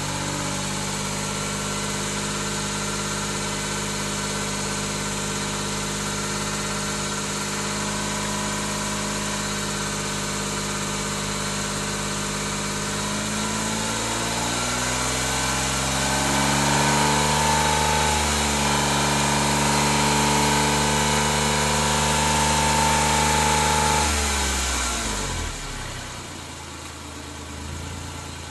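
Exhaust of a Suzuki Jimny JB23-7 through its stock muffler: the small turbocharged three-cylinder idles steadily, is revved up over a few seconds about halfway through, and is held at raised revs for several seconds. Near the end it is released and falls back to idle.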